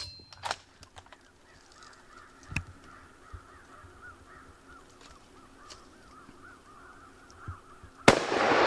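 Crows cawing faintly in a long series of calls, with a few light knocks. Near the end a loud hunting-rifle shot goes off all at once.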